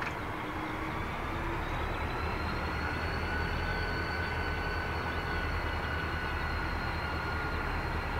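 Idling diesel locomotives of a stopped grain train: a steady low rumble. Over it runs a thin high whine that rises slightly about two seconds in and then holds.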